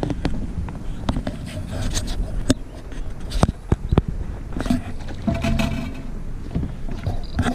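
Wind rumbling on the camera microphone, with scattered sharp knocks and rattles from the boat.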